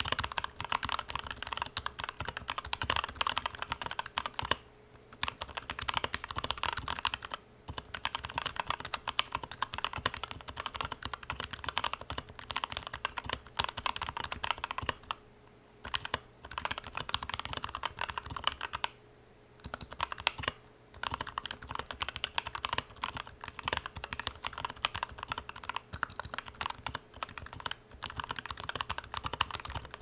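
Typing on a Tada68 mechanical keyboard with lubed Gateron Yellow linear switches and lubed stabilizers: a fast, steady stream of key presses, broken by a few pauses of about a second.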